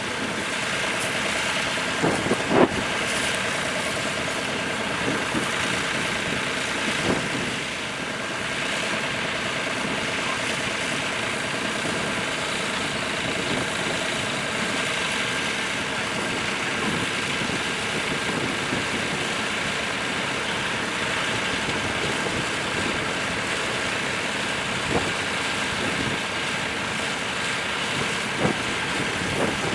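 Tractor engine running steadily, with a few short knocks.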